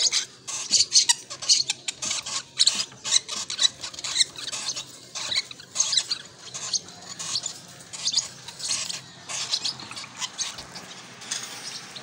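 Lovebird chicks giving short, squeaky begging calls in quick succession while being hand-fed from a syringe, growing sparser in the second half.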